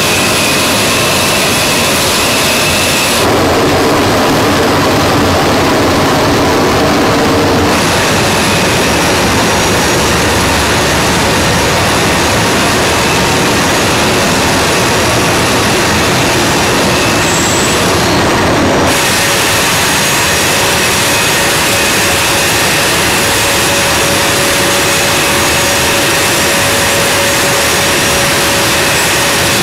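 A-10 Thunderbolt II's TF34 turbofan engines running on the ground: a loud steady rush with a high turbine whine over it. The sound shifts abruptly about 3 seconds in, near 8 seconds and near 19 seconds, as one recording cuts to another.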